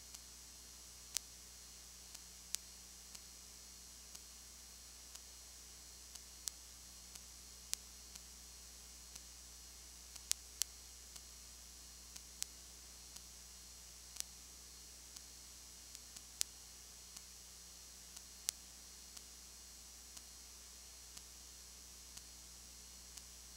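Faint steady hiss and low hum, broken by sharp clicks at irregular intervals, roughly one a second: recording noise on the audio track.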